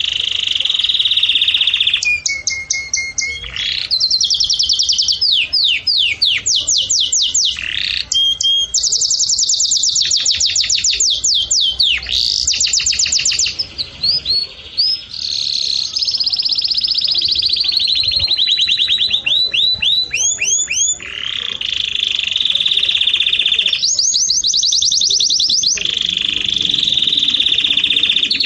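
A songbird singing loudly and close up: a long, varied song of fast runs of repeated chirps and rapid trills, with brief pauses between phrases.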